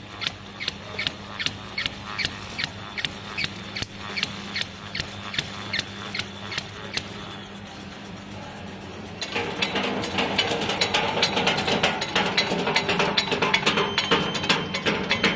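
Automatic pen labeling machine running: a steady hum under regular sharp clicks about twice a second. About nine seconds in, the clicking turns faster, denser and louder.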